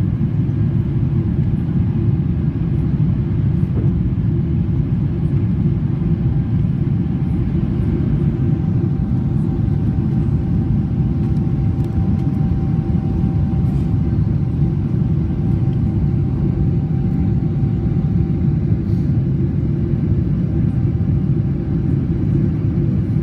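Steady rumble of a jet airliner's engines and airflow heard inside the passenger cabin during the climb after takeoff. A faint steady whine joins about six seconds in and fades near the end.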